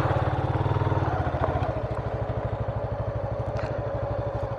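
Motorcycle engine running at low revs, a rapid, even putter of firing pulses that gradually gets quieter.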